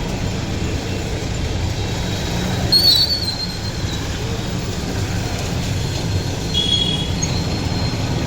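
Steady low rumble of heavy vehicles on a wet road. A short high squeal comes about three seconds in, and a weaker one near seven seconds.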